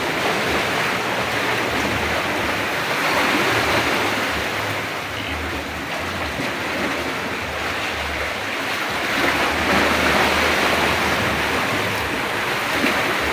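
Sea waves washing against the shore in a steady rush that swells and eases every few seconds.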